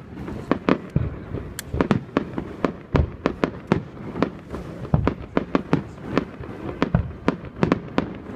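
Fireworks going off in a rapid, dense barrage: a steady run of sharp pops and bangs, several a second, with deeper booms every second or two.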